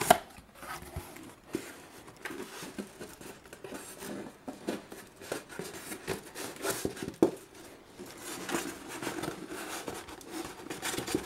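A cardboard box being opened by hand and a styrofoam packing block inside handled and lifted: irregular scraping, rubbing and light knocks of cardboard and foam, with a sharp knock at the start and another about seven seconds in.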